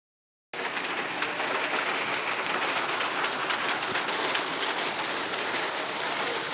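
Heavy rain falling steadily, a dense hiss of countless drops. It starts abruptly about half a second in.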